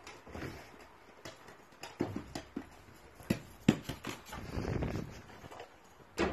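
Irregular knocks and scuffs as a dachshund pushes a ball about with its nose and paws on paving stones and grass. The sharpest knock comes a little past halfway, with another near the end.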